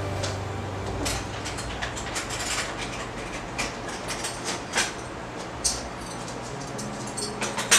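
Scattered light clicks and knocks at irregular intervals over a low steady hum, with a sharper click near the end.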